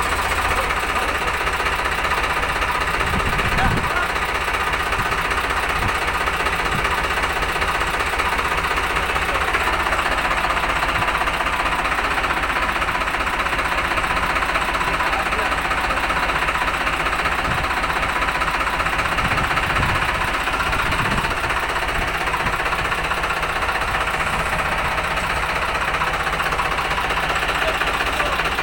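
Farmtrac 60 tractor's diesel engine running steadily at idle, a fast, even clatter that never lets up.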